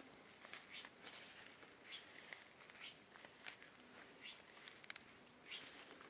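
Faint, irregular rustling and crackling of leaves and twigs, as when someone walks through dense brush. There are two sharp clicks about five seconds in.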